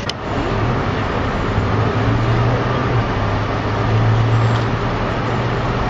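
Fire engine's diesel engine running steadily at close range, a continuous engine drone with a strong low hum.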